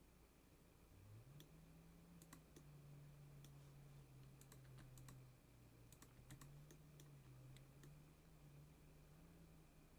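Faint, irregular clicks of a computer keyboard and mouse being used. A faint low hum, wavering slightly in pitch, starts about a second in.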